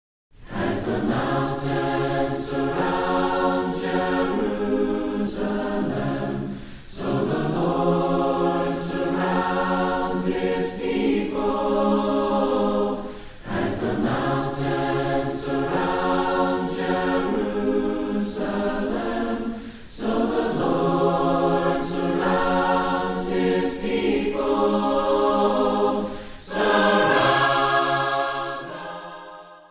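A choir singing a cappella, in long phrases with brief breaks between them, fading out near the end.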